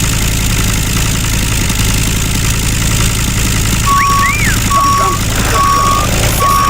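Mini truck's engine running steadily. About four seconds in, a reversing alarm starts beeping at an even pitch, a little more than once a second. A brief rising-and-falling tone sounds as the beeping begins.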